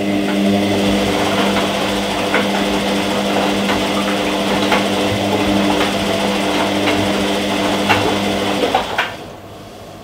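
Front-loading washing machine running a wash cycle, its drum turning with a steady motor hum and light, irregular clicks. The hum stops about nine seconds in as the drum comes to rest.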